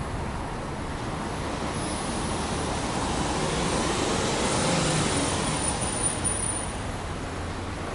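Subaru Impreza 1.5i-L's 1.5-litre flat-four boxer engine running, heard at the exhaust: a steady low hum that grows louder for a few seconds in the middle and then settles back.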